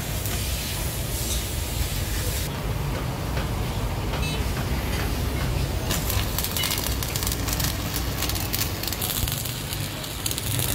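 Stick (arc) welding: the electrode's arc crackling and sputtering as a steel bracket is welded onto a truck. The crackle eases for a few seconds about a quarter of the way in, then comes back denser, over a steady low hum.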